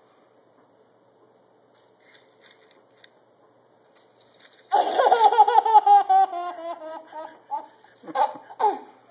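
Toddler laughing. After a few quiet seconds comes a long, rapid run of high-pitched belly laughs that slowly falls in pitch, followed by two shorter laughs near the end.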